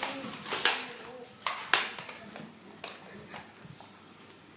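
Nerf foam-dart blasters firing: a run of sharp snaps, loudest in the first two seconds, then a few fainter ones thinning out.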